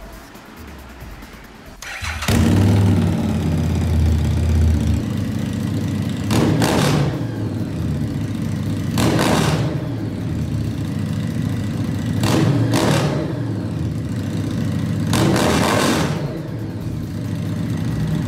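Harley-Davidson Street 750's liquid-cooled 60-degree V-twin started with its stock exhaust removed, catching about two seconds in, then idling loud and deep. It is revved in short bursts about every three seconds, some as a quick double blip.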